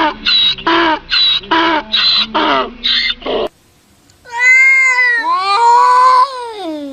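An animal calling: a quick run of about eight short pitched calls, then, after a cut, two long drawn-out calls that rise and then fall in pitch.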